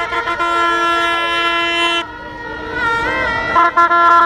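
Horns blown in long held blasts, more than one sounding at once at different pitches. A new blast cuts in about half a second in and stops about two seconds in, and another starts near the end, with a wavering higher tone in between.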